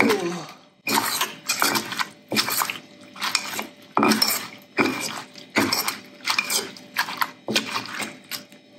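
Stone pestle pounding and bruising wet salad ingredients in a granite mortar, with a metal spoon turning them over: a string of about a dozen sharp knocks, roughly one every 0.7 seconds.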